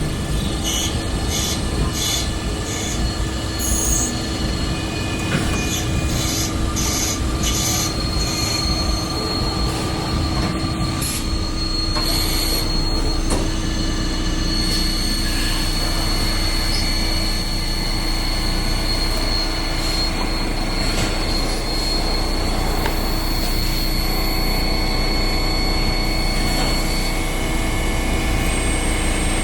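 CNC machine cutting metal: steady, loud machining noise with a constant low hum and a high-pitched whine that holds from about a quarter of the way in until near the end, with short high squeaks early on.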